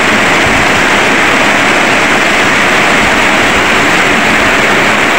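Heavy tropical downpour, a loud steady hiss of rain pouring onto the street and roofs.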